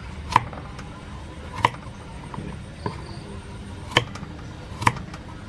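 Large kitchen knife cutting carrot sticks on a wooden cutting board: sharp knocks of the blade striking the board, roughly one a second, four loud and one fainter.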